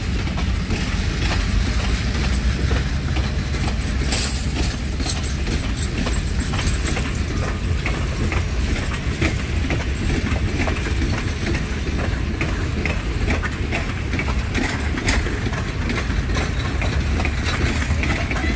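Passenger train cars rolling past: a steady rumble with the wheels clicking and clacking over the rail joints.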